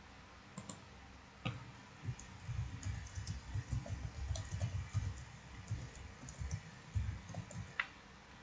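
A couple of clicks, then typing on a computer keyboard in quick, irregular keystrokes, with one sharper click near the end.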